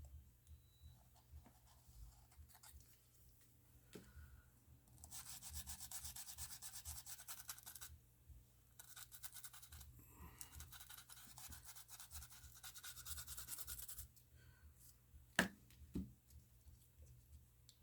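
Faint scrubbing of a small cleaning brush on an iPhone 13's frame, clearing dust and sticky adhesive residue, in two long spells of fine rapid strokes. Two light clicks near the end.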